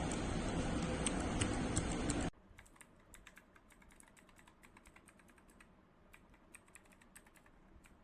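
Mechanical keyboard switches on a switch tester pressed and released in quick succession, a run of sharp clicks and clacks. For about the first two seconds a loud steady noise covers the clicks, then cuts off suddenly, leaving the clicking much quieter.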